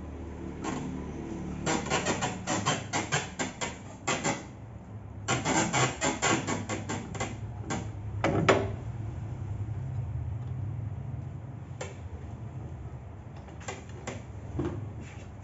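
Rapid clicking and rattling of the belt sander's metal parts being handled and adjusted, in two runs of quick knocks, followed by a few single knocks.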